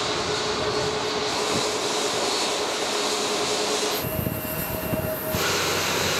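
Boeing 737-8's CFM LEAP-1B turbofan engine running on the ground: a steady rush with a humming tone underneath. About four seconds in the sound changes abruptly to a lower rumble for over a second, then the rush returns.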